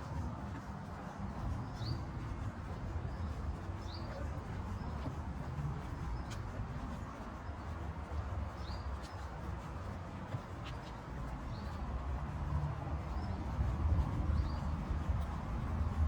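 A bird repeating a short, high, upward chirp about every two seconds, over a steady low rumble.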